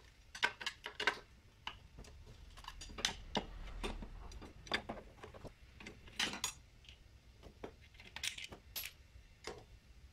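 Irregular metallic clicks and clinks of a socket wrench on a long extension working loose the 8 mm bolts of a scooter's CVT cover.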